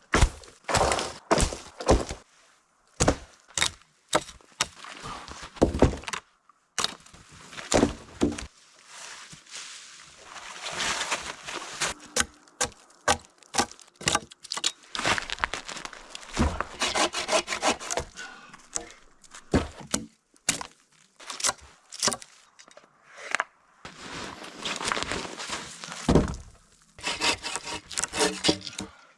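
Wood being worked by hand while building a log sleeping platform: repeated sharp knocks of sticks and logs against each other, with several longer stretches of scraping or rasping on wood.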